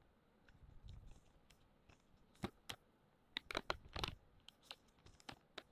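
Faint, irregular light clicks and taps of paper craft pieces being handled and pressed down onto a card base, with a quick cluster of taps a little past halfway.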